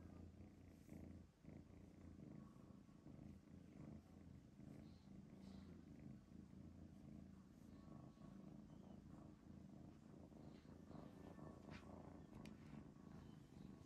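Blue-grey British Shorthair kitten purring softly and steadily as it is stroked and massaged, with a few faint ticks near the end.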